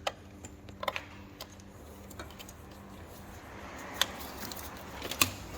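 A few sharp, scattered clicks and light knocks over a steady low hum.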